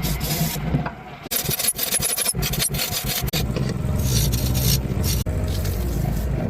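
Turning tool scraping against a walnut blank spinning on a wood lathe, over the steady hum of the lathe motor. The sound changes abruptly a few times, as if cut together from short clips.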